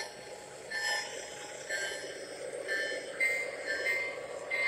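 Lionel O gauge model trains running on three-rail track: a steady rumble of wheels on the rails, with short high ringing tones that come and go several times.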